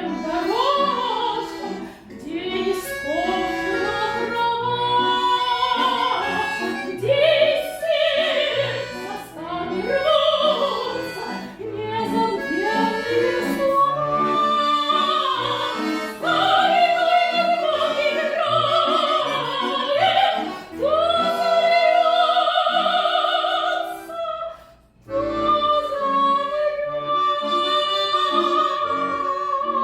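A woman singing a classical-style vocal piece with wide vibrato and long held notes, accompanied by a bayan (button accordion) playing sustained chords.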